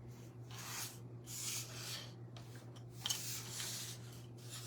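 Soft rubbing and scratching strokes on paper, several separate strokes, one starting more sharply about three seconds in: paste being applied to the paper garland pieces.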